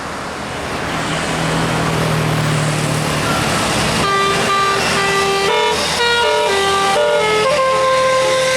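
Bus engine hum and road noise, then about four seconds in a multi-note 'telolet' musical air horn starts playing a tune of quick, changing notes.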